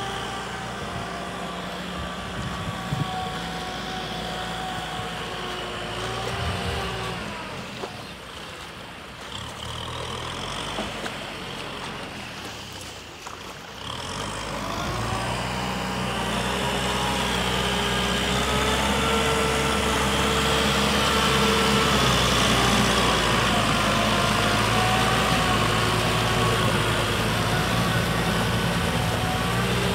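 Kubota M6040SU tractor's diesel engine running under load as it drives a rear rotary tiller through a flooded rice paddy, its pitch wavering slightly. It dips quieter for a few seconds in the middle, then grows louder and steadier through the second half.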